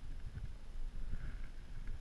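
Wind buffeting the microphone, an uneven low rumble with no clear tone.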